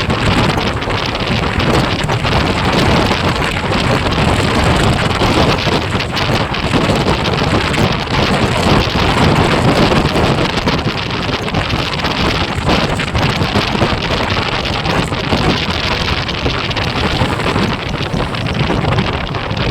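Steady, loud wind rushing over the microphone of a moving motorcycle, drowning out the engine.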